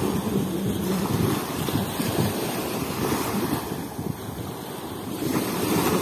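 Small waves washing up onto a sandy beach, mixed with wind buffeting the microphone. The sound eases a little about four seconds in and builds again near the end.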